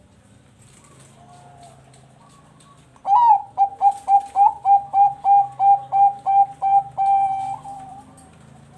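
Bangkok-bred zebra dove (perkutut) singing. After about three seconds of faint soft cooing comes a loud run of about a dozen quick staccato coos, roughly three a second, ending in a longer held note.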